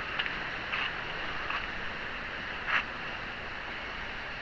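Steady background hiss with four faint, short clicks and taps of hand tools on metal.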